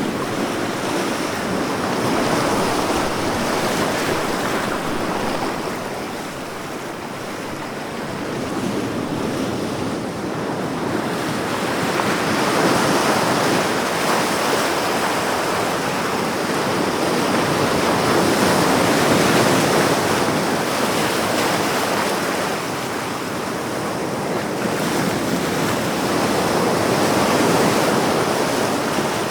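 Ocean surf: waves breaking and washing in, a continuous rushing noise that swells and eases every several seconds.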